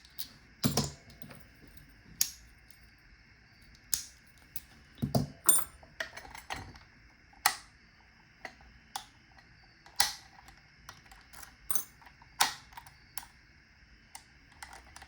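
Padlocks being handled and worked with their keys: irregular sharp metallic clicks and clacks as keys turn and shackles spring open and snap shut, with a few louder knocks.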